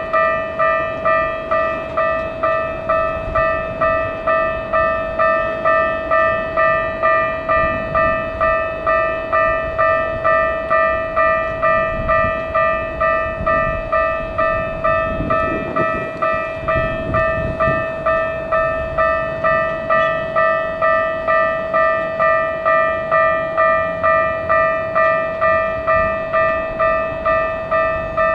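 Railway level-crossing warning bell ringing, a steady repeated ding about one and a half times a second, warning of an approaching train. About halfway through, a low rumble swells briefly beneath it.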